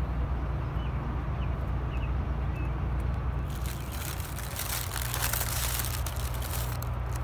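Paper food wrappers rustling and crinkling as they are handled, starting about three and a half seconds in, over a steady low hum.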